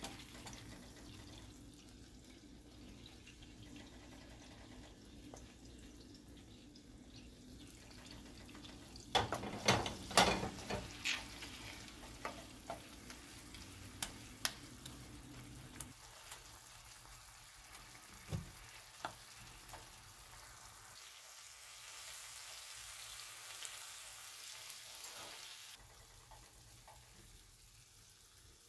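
Cherry tomatoes sizzling in oil in a frying pan, while a wooden spatula knocks and scrapes against the pan as the tomatoes are mashed. The sharp knocks come in a cluster about nine to eleven seconds in, then scattered.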